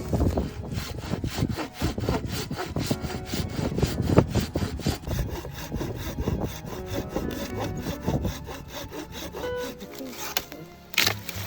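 Wood being sawn by hand in quick, even strokes, about four a second, stopping shortly before the end.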